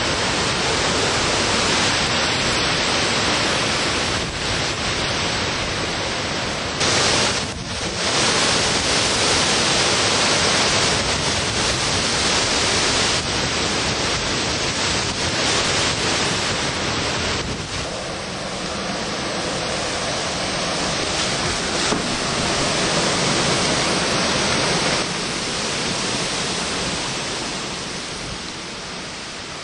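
Hurricane-force wind and heavy driving rain: a loud, steady rush of noise that shifts in level several times and eases off near the end.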